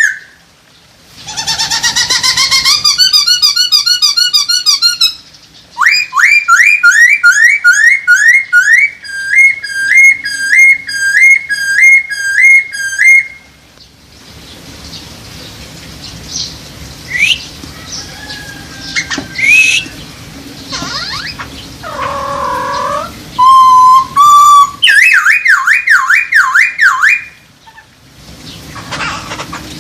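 Poksay hongkong laughingthrush singing: loud runs of rapidly repeated clear whistled notes, one phrase repeated over and over, in the first half. A quieter stretch of scattered calls follows, then another fast up-and-down whistled run near the end.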